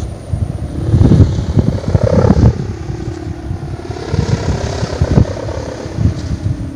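Humming drone of a sendaren, the hummer fitted to a large Banyuwangi kite, its pitch sagging and rising as the wind changes. Heavy wind buffets the microphone and is loudest about one to two and a half seconds in.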